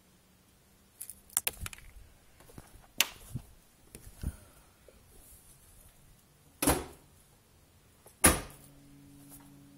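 Light knocks and clicks, then two loud slams about a second and a half apart: the hood of a 2006 Dodge Charger being shut. A faint, low, steady hum follows the second slam.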